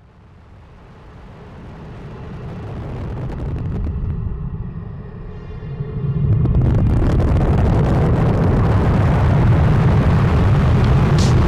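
Rushing, rumbling air noise picked up by a rocket's onboard camera in flight. It swells from faint to loud over the first few seconds and jumps louder about six seconds in.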